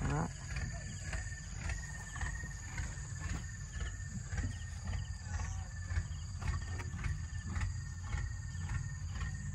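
Steady outdoor insect buzz holding one high, even tone, over a low rumble with scattered faint clicks.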